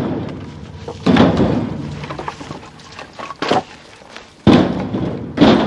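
Split firewood pieces thrown into a trailer, landing with heavy thunks four times at uneven intervals.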